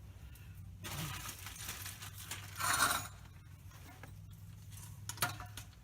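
Handling noises of metal tools and parts under a truck: light metallic clinks and scraping, with one louder scrape about two and a half seconds in, over a steady low hum.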